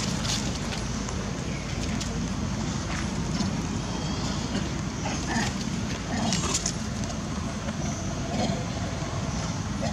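Steady low outdoor rumble with a few faint short squeaks, about halfway through and again near the end.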